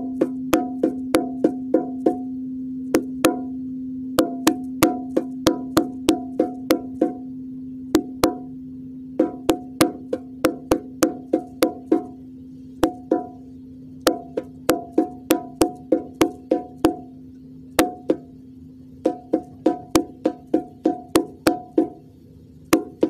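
Bongo drum tapped in quick rhythmic runs, about three dry, sharp strikes a second, each with a short high ring, over the steady low hum of a singing bowl that slowly fades.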